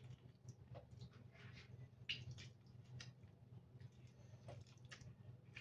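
Faint squelching and scraping of a lemon half being squeezed and reamed with a metal spoon, juice dripping into the bowl, a few soft separate squeezes with the strongest about two seconds in. A low steady hum runs underneath.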